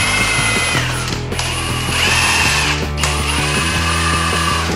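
Cordless impact wrench spinning lug nuts off a wheel in three bursts, its motor whine dropping in pitch as each burst winds down.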